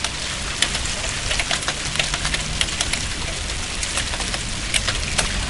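Heavy rain falling with small hail: a steady hiss of rain broken by many sharp, irregular ticks of hailstones striking hard surfaces.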